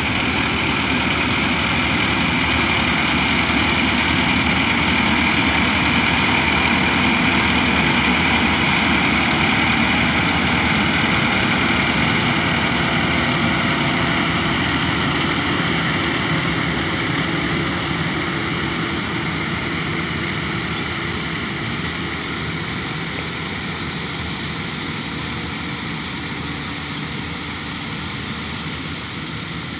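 AW6120 rice combine harvester running steadily as it cuts through a standing paddy: a continuous engine drone with a higher whine on top, growing gradually quieter over the second half.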